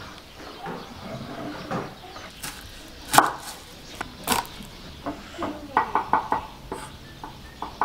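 Kitchen knife chopping garlic cloves on a wooden cutting board: a few separate knocks, then a quick run of about six chops a little past the middle.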